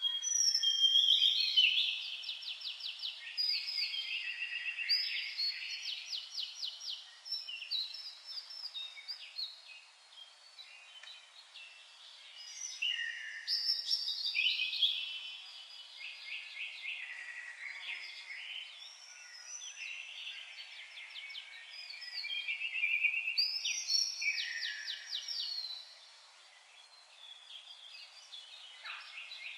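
Several birds singing at once in a dense chorus of rapid trills and chirps, with louder phrases near the start, around the middle and about four-fifths through.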